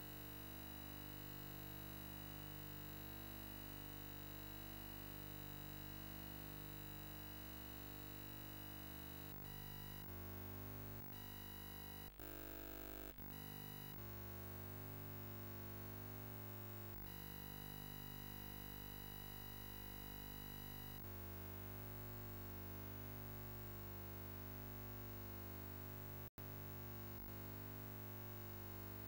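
Faint steady electronic hum and buzz made of many fixed tones. It changes character several times around the middle and cuts out for an instant near the end.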